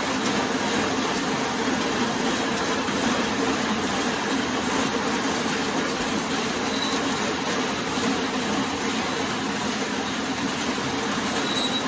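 Engine of a farm vehicle running steadily, a constant drone with no change in speed.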